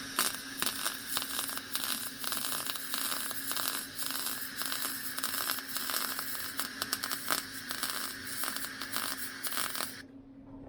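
MIG welder running a bead on thin sheet steel with 0.023 wire, the arc giving a steady crackling sizzle that stops about ten seconds in; the welder has been turned down a notch after burning through the panel. A faint steady hum runs underneath.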